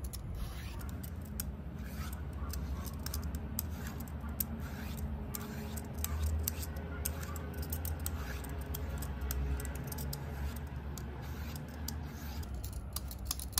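A metal hand peeler scraping strips of skin off a long green zucchetta squash: a run of short, irregular scraping strokes over a steady low rumble.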